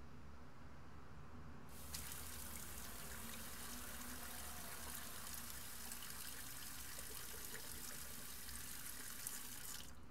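Bathroom sink faucet turned on about two seconds in and running steadily while someone washes his face under it, then shut off just before the end.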